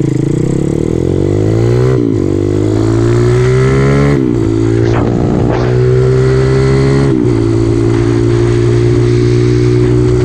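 Small single-cylinder mini trail bike engine accelerating hard, its pitch climbing and dropping at three quick upshifts, then holding a steady cruise. Heavy wind buffeting on the microphone runs under it.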